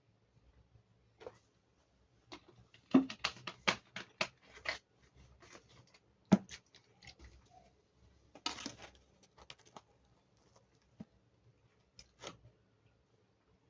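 Close-miked eating of pizza: bites and chewing of crust, heard as clusters of crisp, wet mouth clicks and crunches with quiet pauses between. The busiest run comes about three seconds in, with a single sharp crunch around six seconds and another run around eight and a half seconds.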